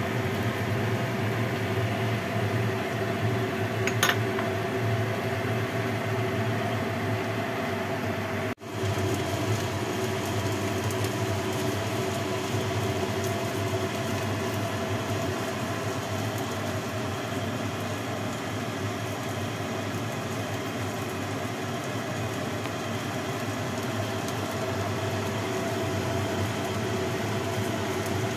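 Steady whir and hum of a kitchen exhaust fan running, with one sharp click about four seconds in, likely the ladle against the glass pot.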